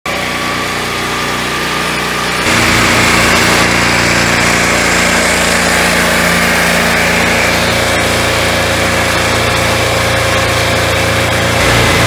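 Swingblade sawmill running steadily on its engine, growing louder about two and a half seconds in as the 12-inch circular blade cuts along a log.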